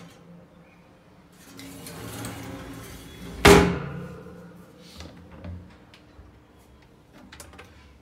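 Pull-out kitchen drawer holding a chrome wire basket sliding shut on its channels, ending in a sharp thump about three and a half seconds in. A few light clicks near the end.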